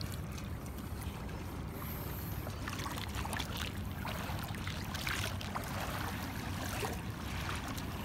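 Shallow seawater sloshing and trickling around a hand digging clams out of the sandy bottom, with small splashes as the hand moves through the water.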